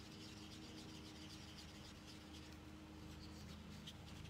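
Faint stirring of acrylic pouring paint in a small plastic cup with a silicone stir stick: light, irregular scraping and rubbing of the stick against the cup, over a faint steady hum.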